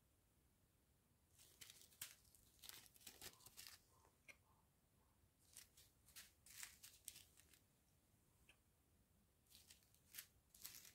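Faint crinkling and rustling of small plastic zip-lock bags of round diamond-painting drills being picked up and handled, in three short spells.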